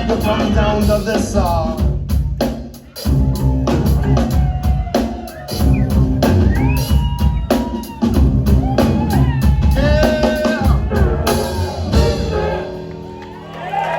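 Live rock band playing the instrumental close of a song: drum kit, bass and pitched keyboard or sampler lines. About twelve seconds in the band plays a last hit, which rings out and fades.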